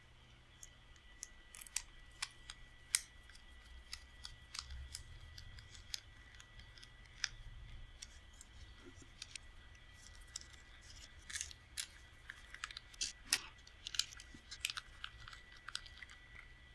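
Small screwdriver driving small screws into a 3D-printed plastic camera case: faint, irregular clicks and scrapes of the screw and driver on the plastic, along with handling of the case, busier in the second half.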